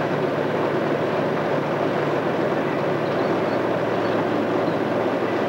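Caterpillar D8 crawler dozer's diesel engine working steadily as it pulls a scraper, a constant heavy-machine drone.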